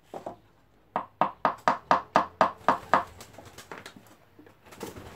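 Scraping strokes worked by hand on a plywood speaker box: a quick, even run of about nine strokes, about four a second, then a few fainter ones and one more near the end.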